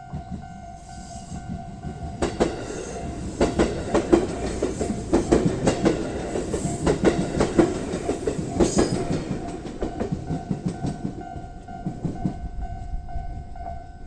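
A JR 221 series electric train passing over a level crossing, its wheels clacking over the rail joints, loudest through the middle as the cars go by. The crossing's electronic warning bell rings steadily before and after the train, then stops near the end.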